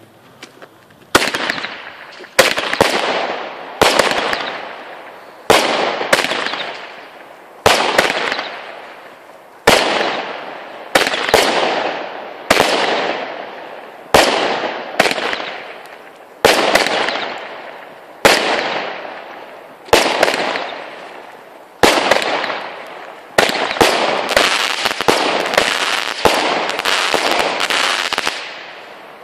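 Nico Mephistos Fire consumer fireworks battery firing a volley of shots, about one every one to two seconds. Each shot is a sharp bang trailing off in a fading hiss, and the shots come faster and overlap near the end.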